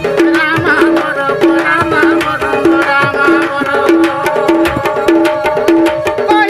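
Instrumental Odia folk music for danda nacha: a fast, even hand-drum rhythm with sharp strokes over a steady held drone, and a wavering melody line on top.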